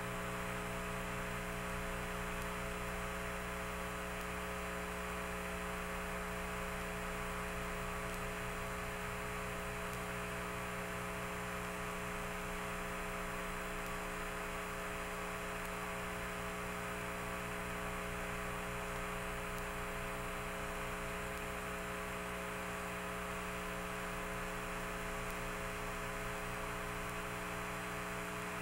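Steady electrical hum and static hiss with several steady tones at fixed pitches, unchanging throughout.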